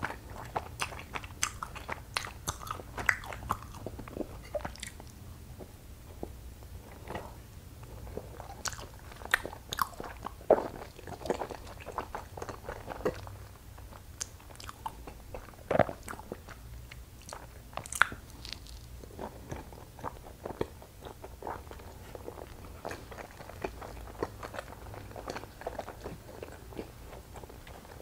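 Close-miked chewing of soft, sticky glutinous rice cake (chapssaltteok), with wet mouth smacks and scattered sharp clicks at an uneven pace.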